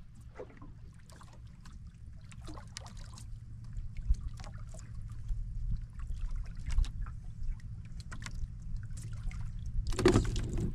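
Water lapping and small splashes at the side of a wooden outrigger boat as a handline is hauled in hand over hand, with scattered short ticks over a steady low rumble. About ten seconds in, a louder splash as the hooked small tuna is pulled up to the surface at the hull.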